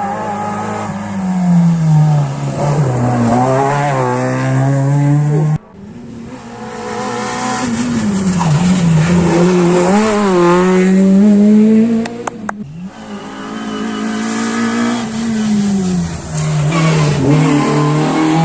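Rally cars driving hard on a stage, in three short clips. Each engine climbs in pitch and drops back again and again as it revs through the gears, and there are two sharp pops a little before the last clip.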